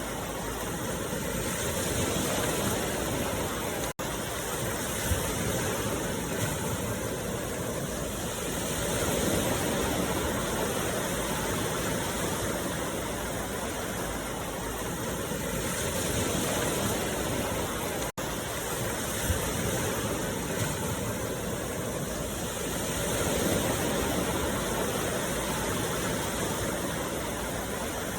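Steady rushing noise that swells and fades about every seven seconds, a looped meditation soundscape. It drops out for an instant twice, about fourteen seconds apart, where the loop restarts.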